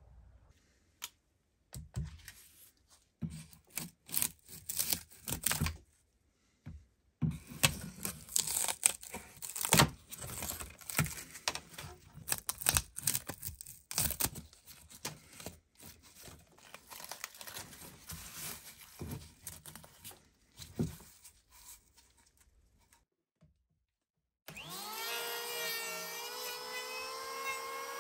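Bark being cracked and torn away from a wooden branch in irregular snaps and scrapes. About three-quarters of the way in, an electric hand planer switches on and runs with a steady whine.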